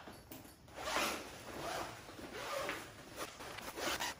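Zipper on the window flap of a fabric 3D printer enclosure cover being pulled open in several short pulls, with the coated fabric rustling.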